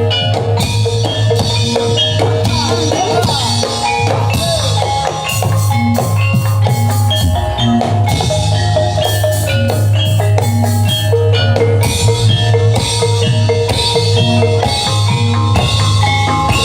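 Live reog ensemble music: drums and gamelan-style mallet percussion playing a dense, steady beat, with a gliding melodic line about two to four seconds in, over a continuous low hum.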